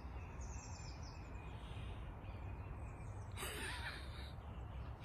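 Woodland ambience: small birds chirping in quick falling runs near the start over a steady low rumble, with one brief harsh, noisy sound about three and a half seconds in.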